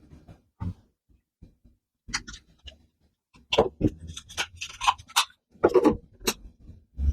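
Handling noise from unboxing a small action camera: irregular clicks, taps and rustling scrapes of packaging and plastic parts, with short quiet gaps and a busier run of taps and rustles in the middle.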